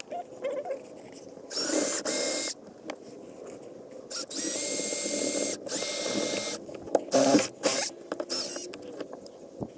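Cordless drill driving screws into a metal seat fitting: three runs of the motor about a second each, steady whine, then a few short bursts of the trigger near the end.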